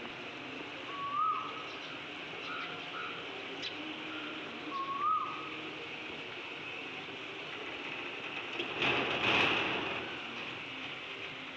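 Automatic swing gate closing, with a short rush of noise about nine seconds in as the two leaves come together. Over a steady hiss, a short rising whistled call, like a bird's, comes twice, about four seconds apart.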